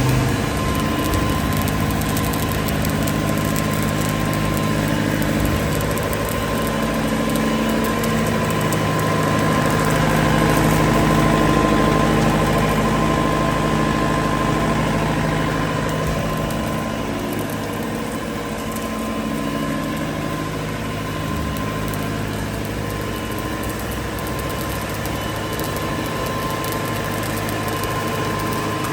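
Water-cooled Weichai WP2.3D40 diesel engine of a TWD 600 welding generator set running steadily at its governed 1500 rpm, with a constant whine from the set under the engine note.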